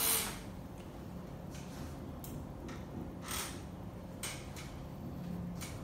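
Hands working during a massage: a series of short brushing sounds at irregular intervals, one louder about three seconds in.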